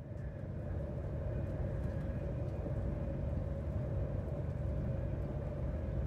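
Passenger train running, heard from inside the carriage: a steady low rumble of wheels and running gear. It swells up over the first second, then holds level.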